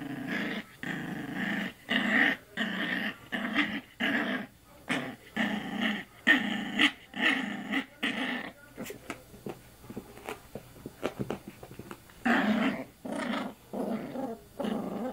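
Puppy play-growling in a run of short growls, about two a second, while mouthing at a person's arm. The growls pause for a few seconds in the middle, with only light clicks, then start again near the end.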